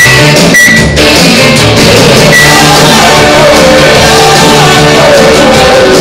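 Loud backing music with a steady beat, guitar and a sung melody, played throughout.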